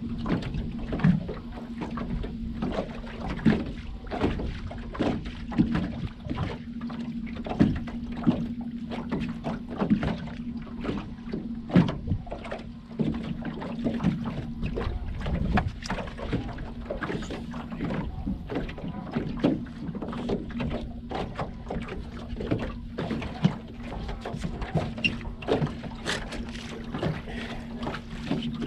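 Water lapping and slapping irregularly against the hull of a small fishing boat, over a steady low hum.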